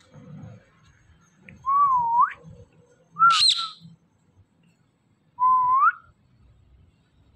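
Indian ringneck parakeet whistling: a clear whistle that dips and then rises, a short sharp shriek sweeping up high a second later, then a second rising whistle like the first.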